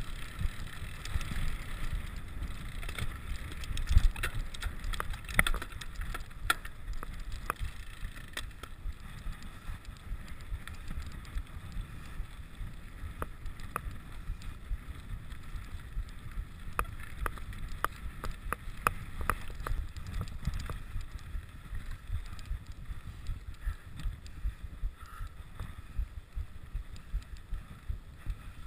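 Wind buffeting the microphone, with frequent sharp clicks and rattles from a rigid 29er mountain bike rolling over a rough grassy track.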